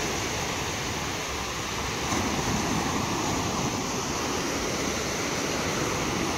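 Low surf breaking and washing up a sandy beach: a steady rush of waves.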